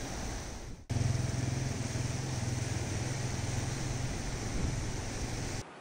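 A short rush of river water and wind, then, after a sudden cut, a Husqvarna TR650 Terra's single-cylinder engine running steadily as the motorcycle rides a gravel track.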